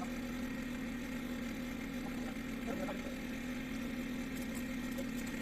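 An engine running steadily at a constant speed, an even hum.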